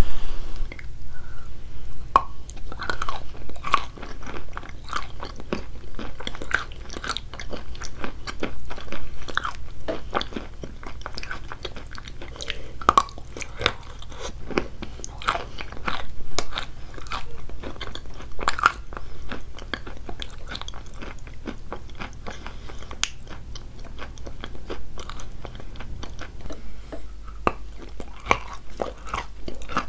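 Close-up biting and chewing of wet chalk coated in paste: repeated crisp crunches and crackles, with softer wet chewing between bites.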